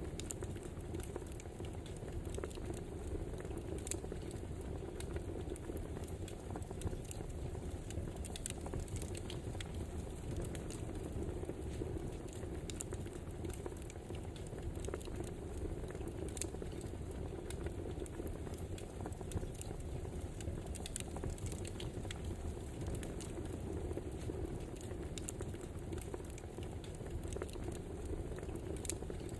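Wood fire crackling: a steady low rustling hiss with irregular sharp pops and snaps.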